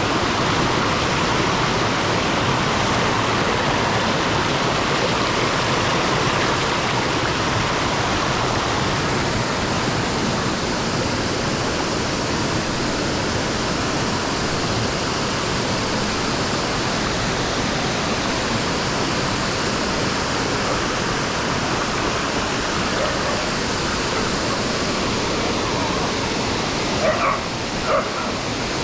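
Waterfall rushing in a steady, loud roar of falling water. Near the end come two short pitched calls.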